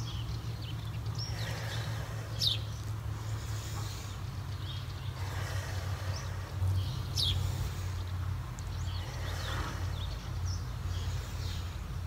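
Birds chirping outdoors: a few short, high chirps that drop in pitch, over a steady low rumble.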